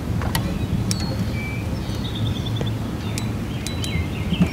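Low wind rumble on the microphone, broken by a few sharp clicks, with a short bird trill about two seconds in and a few faint chirps near the end.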